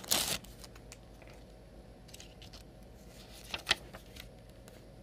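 A plastic trading-card pack wrapper crinkling as it is torn open at the start, then faint clicks and flicks of a stack of cards being handled, with two sharper ticks a little past halfway.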